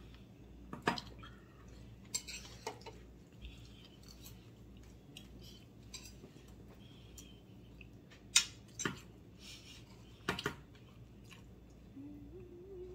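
Cutlery clinking and scraping on plates during a meal: a handful of separate clicks, the loudest about two-thirds of the way through.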